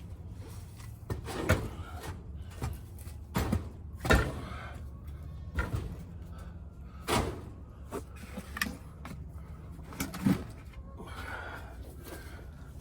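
Bricks being handled and set in place: about half a dozen sharp knocks and thuds at irregular intervals.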